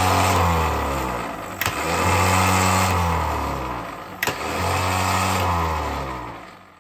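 Rebuilt Bosch 0 001 415 002 24 V 5.4 kW starter motor run free on the bench for its final test after repair. It is already spinning, then the solenoid clicks in twice more, about two and a half seconds apart, and each time the motor spins up again. It winds down near the end.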